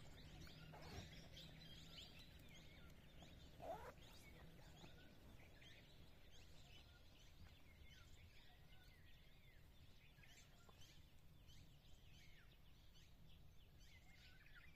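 Near silence with faint, scattered bird chirps, and one slightly louder short call about four seconds in.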